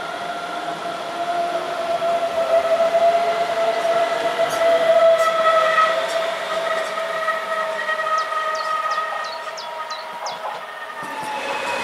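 DB Class 423 S-Bahn electric multiple unit pulling away, its traction drive giving a steady whine of several tones that fades as it goes. Near the end a second train comes close with a louder rushing noise.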